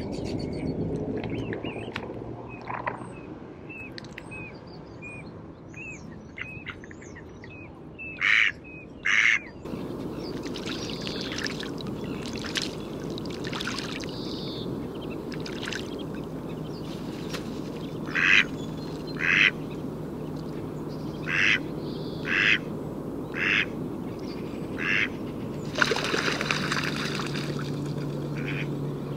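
Mallard quacking: two loud quacks about eight seconds in, then a run of about six quacks spaced roughly a second apart. A burst of splashing near the end as a mallard takes off from the water.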